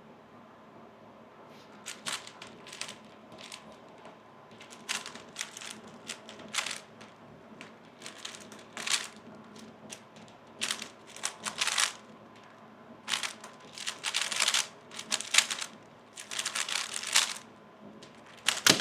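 A 3x3 speed cube being turned fast in a timed solve: runs of rapid clicking, clacking turns broken by short pauses, with a sharp tap just before the end.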